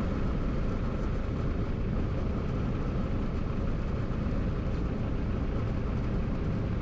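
Piper J-3 Cub descending in a forward slip with the engine throttled back to idle: a steady rush of airflow and engine noise, even in level throughout.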